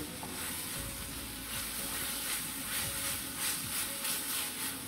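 Onion and spice masala sizzling in a stainless steel frying pan while it is stirred with a spatula, with a series of soft scraping strokes against the pan.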